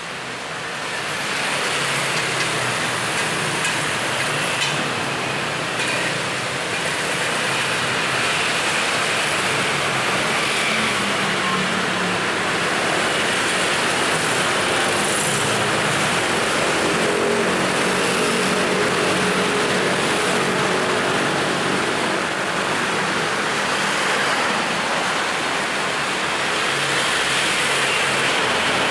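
Busy road traffic: a steady, dense mix of passing vehicle engines and tyre noise, fading in over the first two seconds and then holding level.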